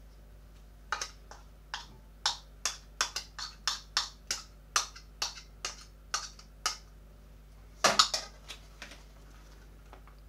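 Spoon scraping and tapping against a small bowl while chili sauce is scooped out, heard as a quick run of about fifteen sharp clicks, two or three a second. A louder clatter follows about eight seconds in.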